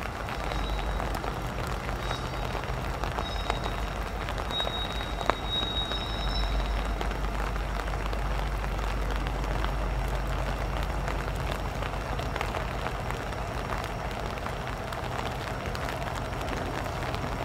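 Union Pacific diesel-electric locomotives leading a freight train at low speed, their engines giving a steady low rumble under an even hiss of rain. A faint high squeal comes and goes during the first several seconds.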